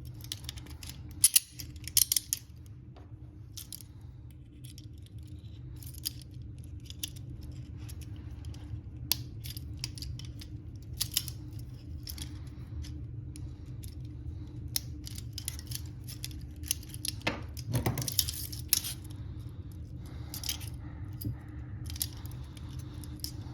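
Metal handcuffs being handled: scattered clicks and light jingling of steel cuffs and chain links, over a steady low rumble.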